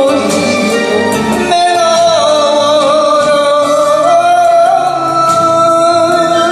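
Enka song with a backing band and a vocalist, who holds one long, slightly wavering note from about a second and a half in.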